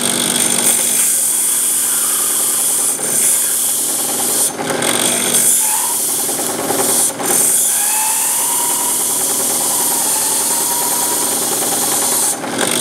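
Belt-driven drill press spinning a wire brush inside a copper pipe: a loud, steady scrubbing rasp of wire bristles on copper over the motor's hum, with a few brief dips as the pipe shifts on the brush. A faint whine wavers in the second half; the drive belts are not very tight.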